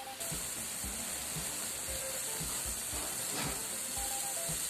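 Pork hock boiling in its stock in a steel wok: a steady hiss of bubbling broth.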